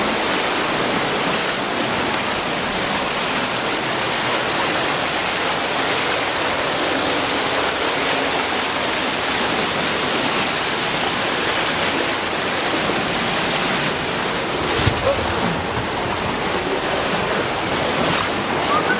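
Cave stream water rushing steadily through the streamway, an even unbroken noise, with a brief low thump about fifteen seconds in.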